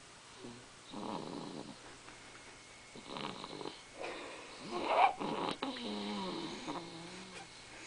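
Baby snoring in sleep: a few separate breathy snores, the loudest about five seconds in, followed by a longer, lower, buzzing snore.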